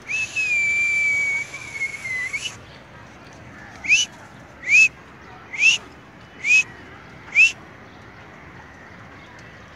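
A person whistling: one long held note lasting about two and a half seconds, then five short upward-sliding whistles in an even rhythm, about one a second.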